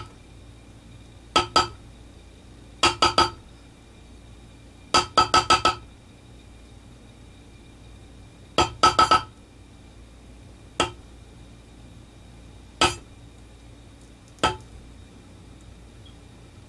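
A mallet striking the end of a metal leather stamp, tooling an impression into leather. The hits come in quick clusters of two to five taps, then as single taps about two seconds apart, and each tap has a short metallic ring.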